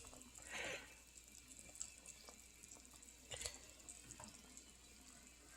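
Near silence: room tone, with a brief faint soft noise about half a second in and a few faint light clicks.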